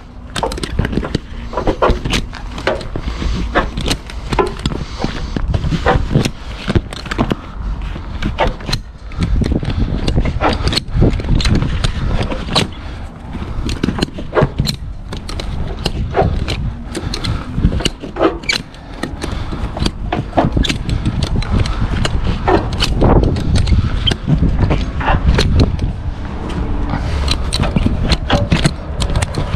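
Footsteps on concrete with many sharp clicks and rattles, over a steady low rumble of wind on the microphone.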